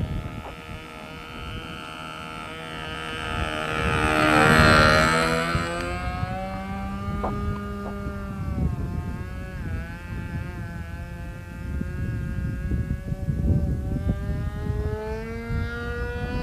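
Evolution .36 two-stroke glow engine of an RC airplane running at full throttle with its propeller buzzing as the plane flies overhead. It passes close about four to five seconds in, loudest there, with the pitch dropping as it goes by, then drones on farther off with the pitch shifting as it turns.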